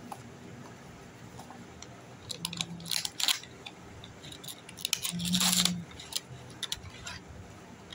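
Small cardboard box being opened by hand: a flap folded back and the inner packing slid out, with rustling, crinkling and scraping of card. The handling comes in clusters, with the longest and loudest scrape a little past the middle.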